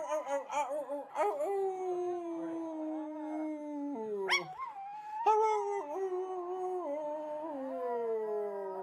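A small dog howling in long drawn-out notes that slowly fall in pitch, with a short break and a quick upward yelp about four seconds in before the howl resumes.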